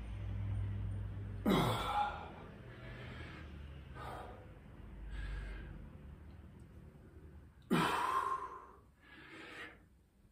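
A man breathing hard through a set of dumbbell shoulder exercises: a string of heavy exhales every few seconds, the loudest about a second and a half in and near eight seconds.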